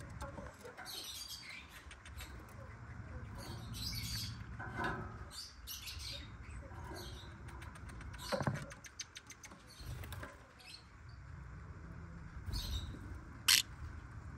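Pet lovebirds chattering with scattered short chirps and squeaks, a quick run of clicks just past the middle, and one loud sharp call near the end.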